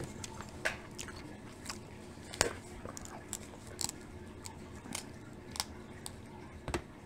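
Snow crab legs being eaten: about a dozen small, irregular shell cracks and clicks as the shells are broken and picked apart by hand, with chewing. The sharpest crack comes about two and a half seconds in.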